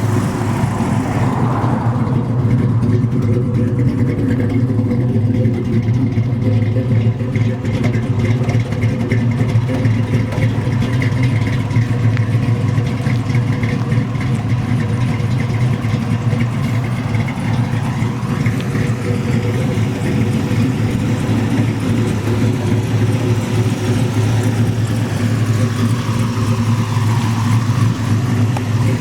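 Fuel-injected 355 small-block Chevy V8 with a solid-lifter cam, idling steadily.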